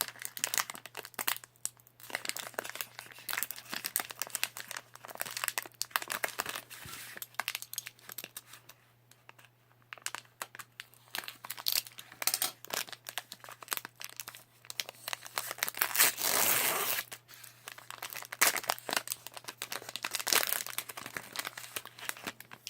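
Plastic wrapping on a trading card hobby box crinkling and being torn open by hand, in irregular crackles. There is a longer rip about two-thirds of the way through. A faint steady electrical hum runs underneath.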